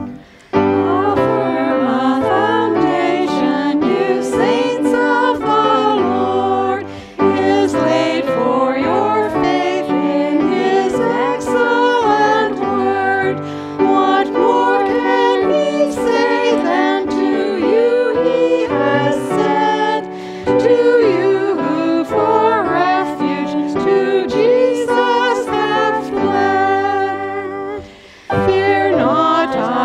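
Church music: a hymn sung by several voices with keyboard accompaniment, with short breaks between lines.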